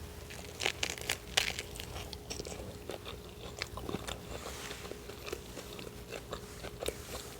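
Close-miked biting and chewing of a deviled-egg sandwich with lettuce: a cluster of crisp crunches about a second in, then softer wet chewing clicks throughout.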